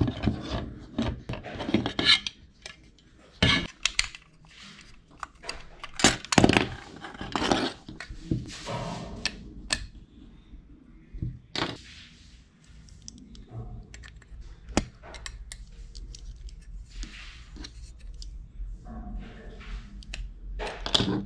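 Small hard parts of a die-cast model car being handled on a workbench: irregular clicks, taps and short scraping rustles of metal and plastic.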